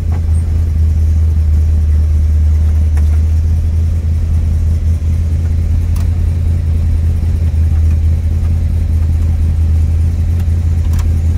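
1970 Plymouth Barracuda's 440 Six-Barrel V8 idling steadily, heard from inside the cabin as a low, even drone, with a few faint clicks.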